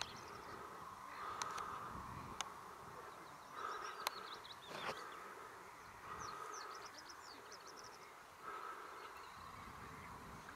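Outdoor ambience: an insect-like buzz that comes and goes in stretches of about a second, with runs of high, quick, falling chirps and a few sharp clicks.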